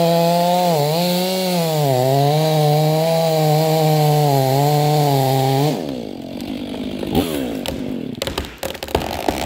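Stihl MS500i fuel-injected two-stroke chainsaw at full throttle cutting through a large sycamore trunk, its pitch dipping briefly twice as it loads in the wood, then coming off the throttle and dropping away about two thirds of the way in. A few sharp cracks and snaps follow near the end.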